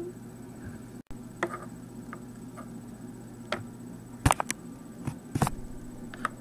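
A few light, irregular clicks and taps over a faint steady hum.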